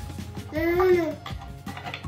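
A short wordless vocal sound, about half a second long, rising and then falling in pitch, over steady background music.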